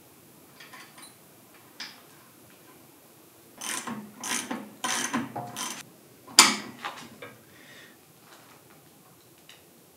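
Metal clicking and rasping from hand tools on a hydraulic cylinder being reassembled: a quick run of about five short strokes, then one sharp metallic knock, with a few light clicks around them.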